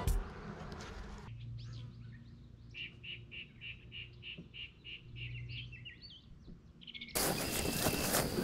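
A songbird singing: a run of about a dozen quick, even notes, about four a second, then a few different short notes. Near the end a louder, steady hiss of background noise sets in.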